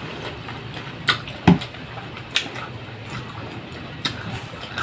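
Eating sounds: chewing and mouth noises with about five sharp clicks scattered through, and a brief low sound about a second and a half in.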